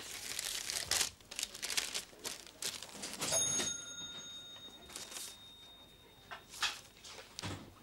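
Paper rustling and crinkling as an envelope is opened and a letter unfolded and handled, in short rustles with pauses. A faint high ringing tone starts about three seconds in and dies away over the next few seconds.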